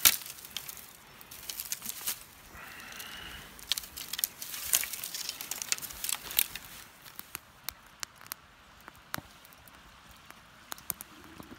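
Dry twigs and leaf litter crunching and snapping underfoot in a run of irregular cracks. Later there are fewer, fainter pops: wood burning with a crackle in a small perforated wood-burning camp stove.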